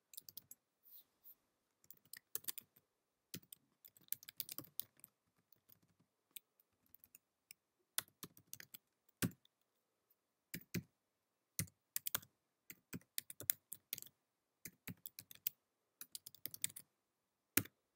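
Faint computer keyboard typing: irregular clusters of keystroke clicks, thinning to a few scattered taps for a couple of seconds midway.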